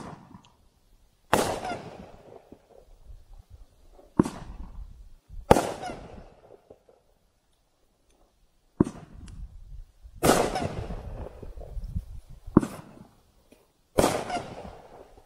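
A 500-gram consumer firework cake, 'Unleash the Power', firing shot after shot: about eight sharp bangs at irregular intervals, several trailing off in a fading rumble.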